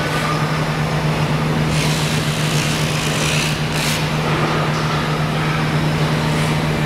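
Steady drone of running machinery with a constant low hum.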